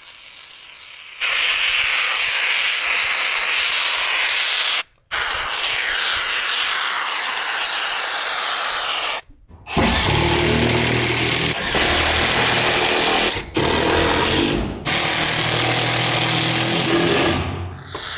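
Cordless power driver running in long stretches, driving screws into a wooden window frame. It cuts off abruptly twice, about five and nine seconds in, and turns deeper after the second break.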